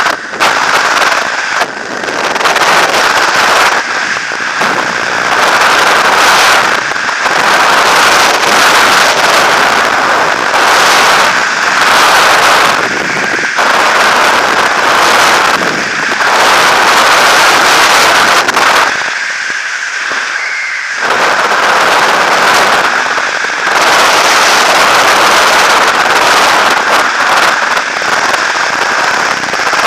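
Loud rushing freefall wind buffeting the camera microphone, rising and falling in gusts, with a lull of about two seconds a little past the middle.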